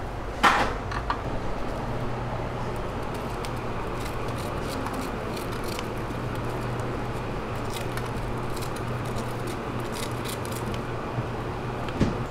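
Food-prep clatter at a waffle counter: a sharp clatter about half a second in, then scattered light clicks and taps of utensils, over a steady low hum of shop equipment.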